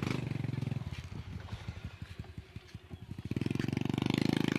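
Small boat engine running with a fast, even chug, growing louder about three seconds in.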